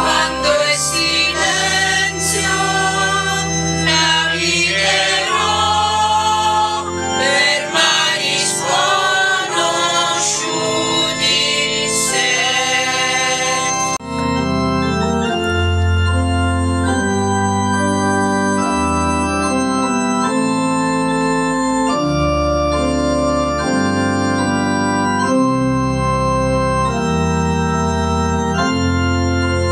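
Church music: a hymn sung over organ chords. About halfway through the singing cuts off abruptly, and held organ chords over a moving bass line carry on alone.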